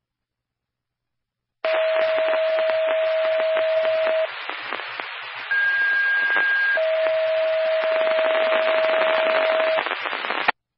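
Emergency-services two-way radio keyed up with static hiss and a steady tone, which gives way briefly to a higher tone and then returns. The transmission starts suddenly about a second and a half in and cuts off abruptly near the end.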